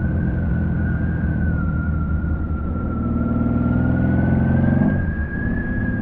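Honda Valkyrie's flat-six engine through Cobra six-into-six pipes, pulling with rising pitch from about three seconds in, then dropping off sharply near five seconds as the throttle closes or it shifts. A steady high whistle runs over it.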